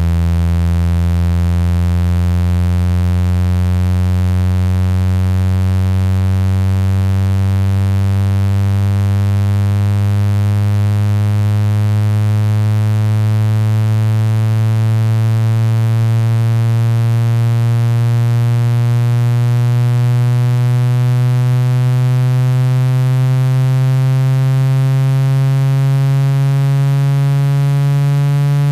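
Low buzzing test tone for ejecting water from a phone speaker, sweeping slowly upward in pitch without a break, its rich overtones giving it a harsh, buzzy edge.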